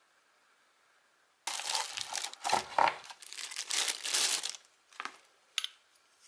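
Packaging crinkling as it is handled, starting over a second in and lasting about three seconds, followed by two short crinkles near the end.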